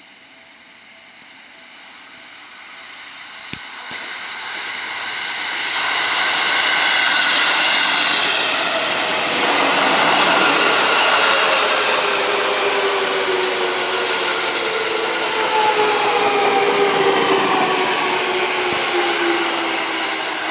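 Seibu 9000 series electric commuter train approaching and running past, getting louder over the first several seconds. Wheel and track noise carries a whine of several stacked tones that slowly fall in pitch.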